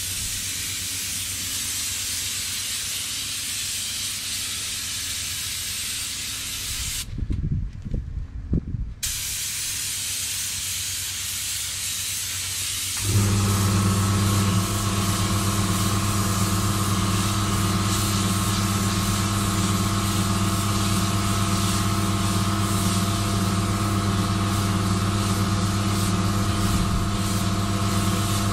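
Air spray gun hissing steadily as paint is sprayed, with a pause of about two seconds filled by a few low knocks. About halfway through, an air compressor starts and keeps running with a steady hum under the hiss.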